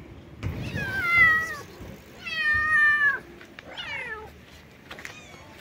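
Kitten meowing three times in high calls, the middle one the longest and loudest, the last one sliding down in pitch.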